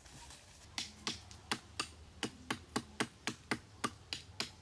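A steady run of about a dozen sharp knocking strikes, close to four a second, beginning about a second in.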